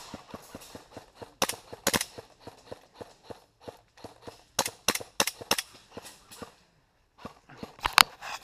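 Airsoft guns firing: sharp cracks about a second and a half and two seconds in, a quick run of four around five seconds, and the loudest one near the end. Under them, quick even footsteps, several a second, stop briefly just before the last shot.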